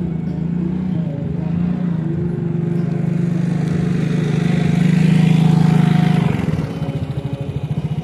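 An engine running close by with a fast, even firing pulse, growing louder to a peak about five to six seconds in and then fading off.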